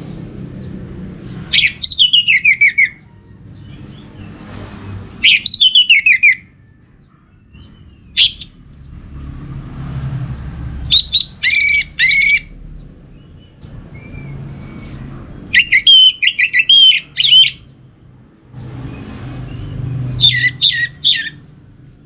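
Orange-headed thrush singing loud, short phrases of rapid notes. The first two phrases run downward in pitch. About six phrases come a few seconds apart.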